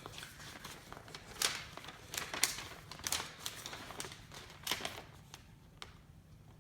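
Irregular rustles and light clicks of paper and packaging being handled, dying down about five seconds in.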